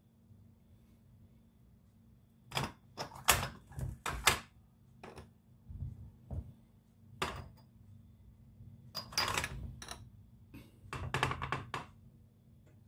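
Glass jars and a tin can knocking and clinking against a stainless steel pan and each other as they are moved with metal tongs in a hot-water bath. Sharp, separate clatters come in two clusters, one a couple of seconds in and a busier one near the end.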